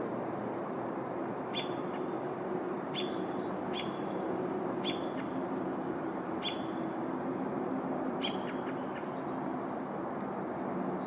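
A small bird calling with short, sharp chirps, about six in all at uneven intervals of one to two seconds, over a steady background hum.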